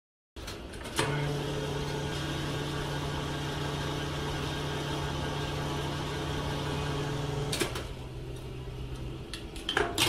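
Small DC water-pump motor running with a steady hum, pumping fuel through a model petrol pump's hose. A click sounds about a second in. After another click the hum goes on more weakly, then stops shortly before the end, and a few small clicks follow.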